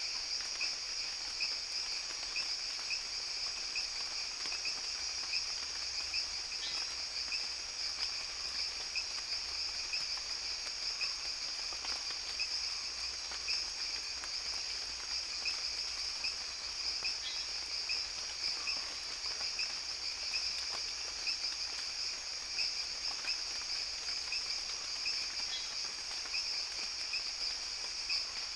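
Rainforest night-insect chorus: a dense, steady, shrill trilling at two pitches, one high and one lower, with a few faint short calls breaking through now and then.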